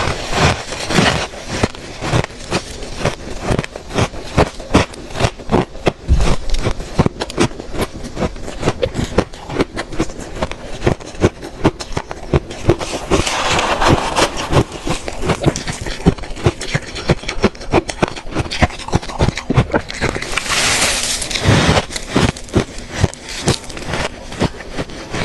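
Freezer frost ice being bitten and crunched up close: a rapid, continuous run of crisp crackling crunches, with two longer scraping stretches, one about halfway through and one near the end.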